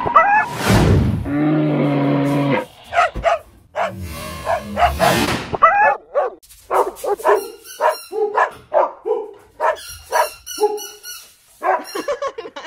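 A dog barking and yipping in quick, excited bursts through the second half. Near the start there is a brief whoosh and a short steady low hum.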